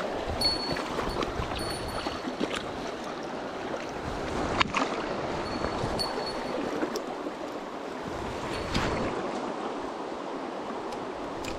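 Shallow river water rushing steadily over stones around wading legs. Two sharp clicks stand out, about four and a half and nine seconds in, and a few brief high peeps come near the start and again around six seconds.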